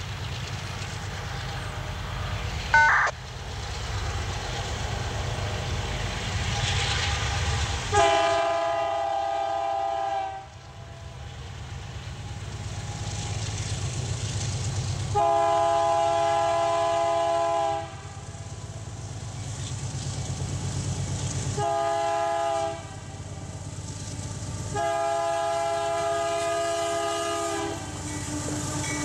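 Air horn of the lead GE AC4400CW locomotive sounding the grade-crossing signal: two long blasts, a short one and a long one. Under it runs the low rumble of the diesel locomotives pulling a freight train up a grade as they approach. A brief sharp click comes about three seconds in.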